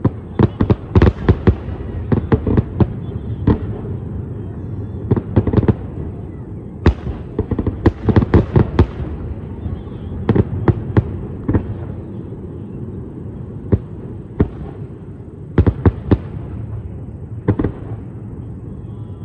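Aerial fireworks shells bursting: irregular clusters of sharp bangs, several in quick succession at times, over a steady low rumble between them.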